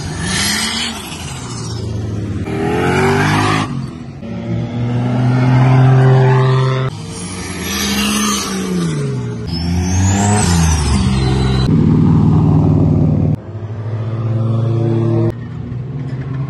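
Drift cars' engines revving hard, pitch climbing and dropping again and again, with tyres screeching under the slides. The sound jumps abruptly every few seconds as one car gives way to another.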